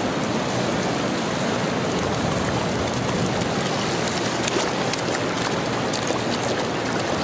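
Steady roar of ocean surf breaking and washing up the beach, with wind buffeting the microphone.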